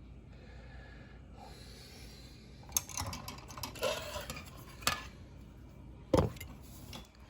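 Plastic model kit parts being handled: a rustle and a few sharp plastic clicks, with a louder knock about six seconds in.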